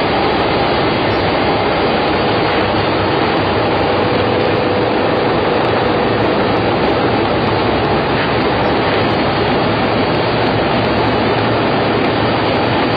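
Baby diaper production machine running: a loud, steady mechanical din with a faint steady hum tone running through it.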